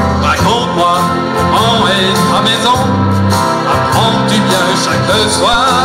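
Music: a voice singing into a microphone over an instrumental accompaniment.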